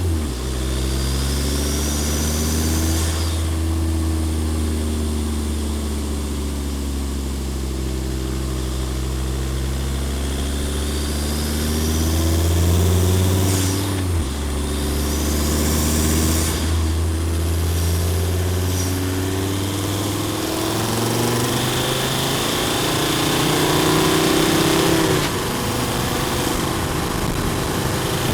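Volvo D5 2.4-litre five-cylinder turbodiesel with a cold air intake, heard from the engine bay: running steadily near idle, with a few light rises in revs that bring a high turbo whistle sweeping up and falling away.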